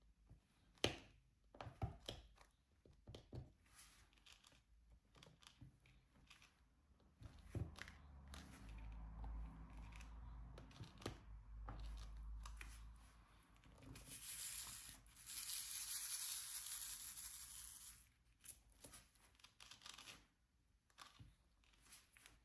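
Diamond painting work: small clicks and taps of a drill pen and resin drills, then a longer crackling, tearing sound in the middle that lasts several seconds and is loudest for about four seconds before stopping.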